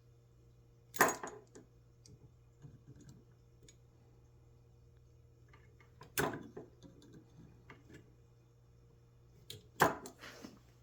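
Sharp clicks and knocks of hand tools and metal parts being handled while the belt sander's motor fan blades are bent straight: three louder clacks, about a second in, about six seconds in and near the end, with faint ticks between.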